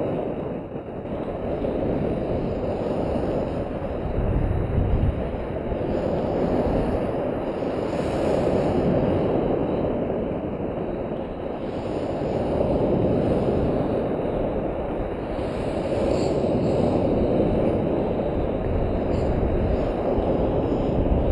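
Surf breaking and washing up close to the microphone, with a low rumble that swells and eases every few seconds as each wave comes in and drains back.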